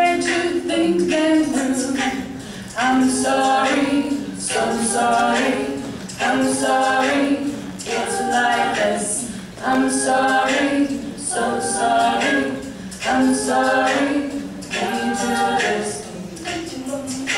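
Women's a cappella group singing in harmony, unaccompanied, with a short vocal phrase that repeats about every second and a half to two seconds.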